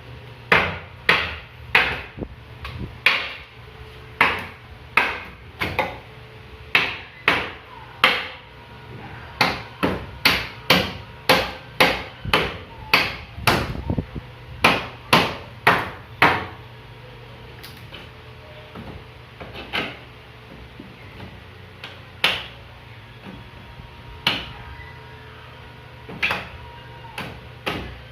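Hammer blows on a cabinet being knocked apart, struck in quick runs of about one to two blows a second, thinning to occasional single strikes past the midpoint before a last short run near the end.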